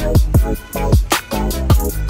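Background music with a steady beat of deep kick drums that fall in pitch, under a repeating melodic figure.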